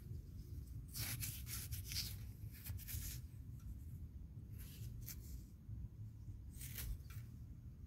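Sandy fingers rubbing grit off a small holed coin freshly dug from the soil: a few short, scratchy rubs, bunched in the first three seconds and again around five and seven seconds, over a steady low rumble.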